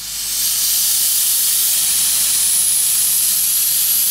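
Steam locomotive blowing off steam low at its cylinders, most likely through the cylinder drain cocks: a loud, steady hiss that swells up within the first half second and then holds.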